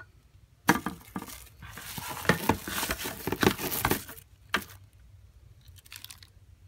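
Dust and debris pouring out of a robot vacuum's plastic dust bin into the trash, a dense crackling patter for a couple of seconds, with plastic knocks from the bin being handled before and after.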